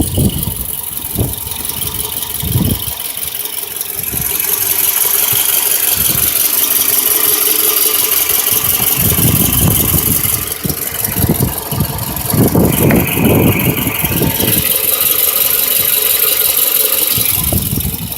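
2008 Toyota RAV4 engine idling with a random misfire: the idle runs unevenly, with irregular low pulses, most of them around the middle and later part. A steady high hiss runs alongside from about four seconds in.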